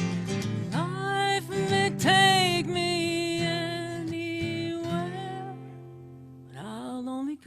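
A solo singer accompanied by acoustic guitar, holding long sung notes with a slight waver. The voice drops away briefly about six seconds in, then slides up onto a new note near the end.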